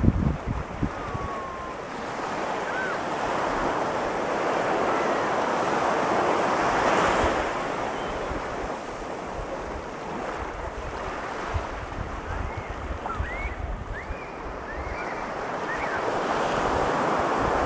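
Pacific surf breaking and washing up the beach as a steady rush of noise, swelling about five seconds in and again near the end. Wind buffets the microphone with low rumbles.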